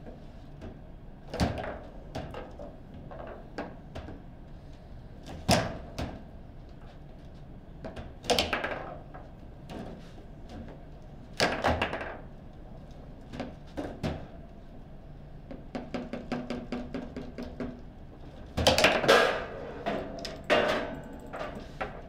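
Table football play: the hard ball is struck by the plastic players and the rods knock against the table, giving sharp separate knocks every few seconds. There is a quick run of light clicks, then a burst of the loudest bangs near the end, within the stretch where a goal is scored.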